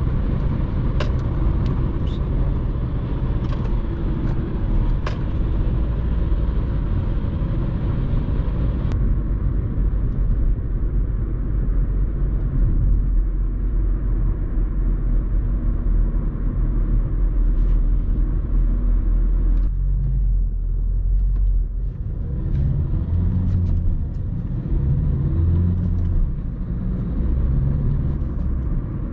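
Mercedes-Benz A180d with a 1.5-litre four-cylinder turbodiesel, driven on the Autobahn and heard from inside the car: a steady rumble of road and wind noise with the engine beneath it. The hiss drops abruptly about nine seconds in and again around twenty seconds, and an uneven low drone follows near the end.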